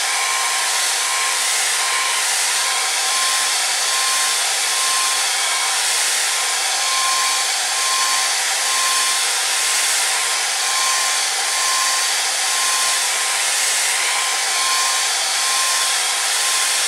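Handheld hair dryer blowing steadily over a wet watercolor layer to dry it: a rushing of air with a steady motor whine.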